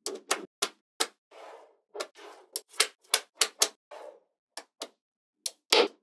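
Small magnetic balls clicking and snapping together as bars of balls are pressed into a slab: a dozen or more sharp clicks at irregular intervals, with soft rattling slides between some of them and a quick run of louder snaps near the end.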